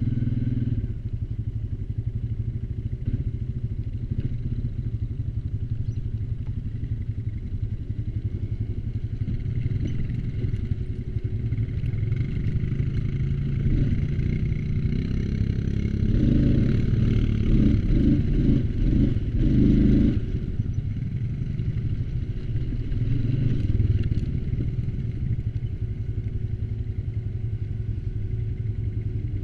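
ATV engine running while riding, louder and rougher for a few seconds past the middle, with some rattling.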